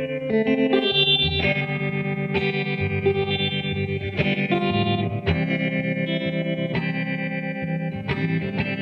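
1957 Gibson ES-225TD hollowbody electric guitar, on both P-90 pickups, finger-picked through a clean valve amp with reverb and tremolo switched on, with new chords struck every second or so.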